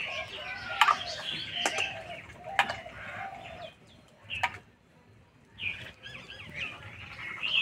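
Chickens clucking in short repeated calls, with a few sharp metallic clicks as a steel ladle knocks against the iron wok while hot water is ladled out; the clucking drops away for a moment just past the middle.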